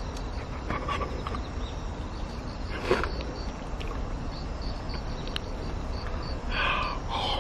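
A man eating saucy fried chicken, with muffled vocal noises as he bites in near the end, over a steady low outdoor rumble and a faint regular high chirping.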